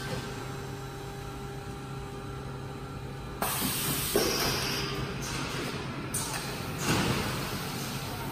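Short-cycle melamine hot press line running: a steady low machine hum, then from about three and a half seconds in a loud hiss with a knock, and another swell of noise near the end.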